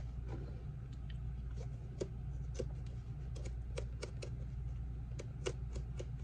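A small blade cutting the stitching threads that hold a boot's welt: a series of short, irregular snips and clicks.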